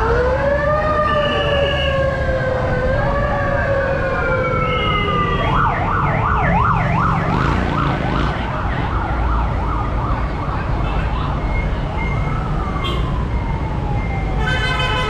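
Several convoy escort sirens wailing at once, their pitches slowly rising and falling, with a rapid yelp of about four sweeps a second for a couple of seconds midway, over steady traffic rumble. A horn starts just at the end.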